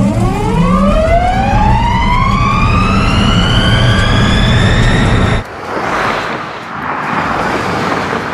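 Lotus Evija electric hypercar's electric motors whining as it accelerates hard, the pitch rising steeply and then levelling off. About five seconds in the whine cuts off abruptly, replaced by a steady rushing noise.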